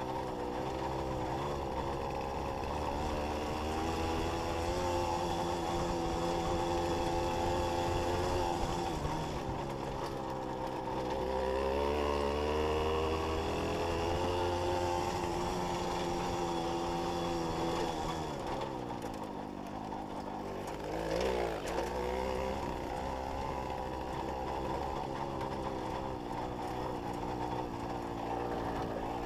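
Jawa 555 moped's 50 cc two-stroke single-cylinder engine running under way, its pitch rising and falling with the throttle; it drops off about nineteen seconds in, then picks up again.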